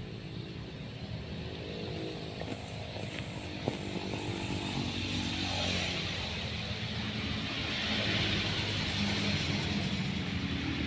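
A motor vehicle's engine running on the road, slowly growing louder, with one small click about four seconds in.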